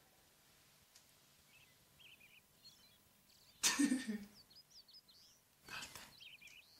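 Birds chirping faintly, broken about three and a half seconds in by one loud, sudden burst from a person's voice, like a sneeze or sharp exclamation. A shorter, breathier burst follows near the end.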